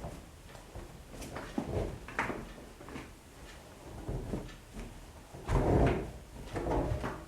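AEG Öko Lavamat Edition 2000 washing machine at work, giving irregular knocks and swishes, the loudest about five and a half seconds in.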